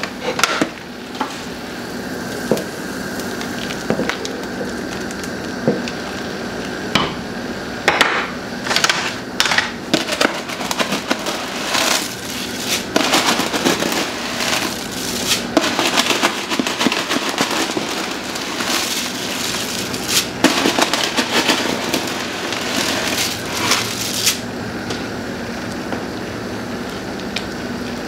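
Clear plastic bag crinkling and rustling in irregular bursts as dry pasta noodles are shaken out of it into a pot of boiling soup.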